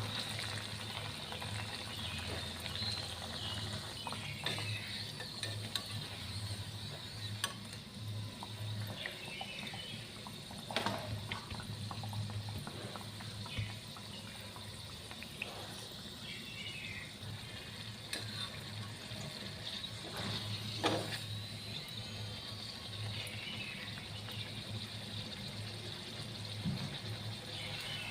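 Potato-stuffed kachoris deep-frying in hot oil in a kadhai, a steady crackling sizzle, with two sharp utensil taps about eleven and twenty-one seconds in.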